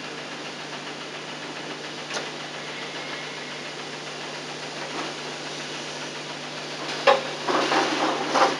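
Steady hum and hiss of a digitized VHS soundtrack, with a single click about two seconds in and another about five seconds in, then a louder cluster of clicks and rustling near the end.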